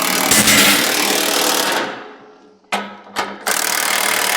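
A power tool tightening down a bolt: a run of about two seconds, two short blips, then another run near the end.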